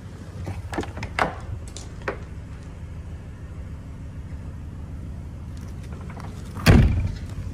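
Door latch clicking and a door being worked open on a horse truck's rear horse compartment, with a few sharp clicks in the first two seconds and a loud thump near the end, over a steady low rumble.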